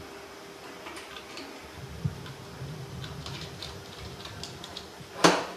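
Small metallic clicks and taps as a lamp holder box is handled and fitted onto the bracket of a grow-light reflector, with a light knock about two seconds in and one sharp metal clack about five seconds in.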